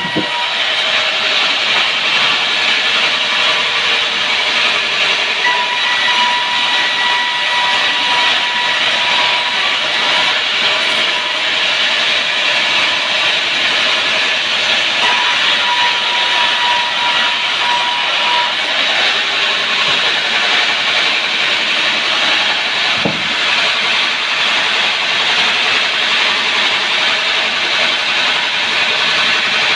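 Sawmill saw cutting through sengon (albizia) wood: a steady, loud cutting noise with a thin whine that comes and goes several times.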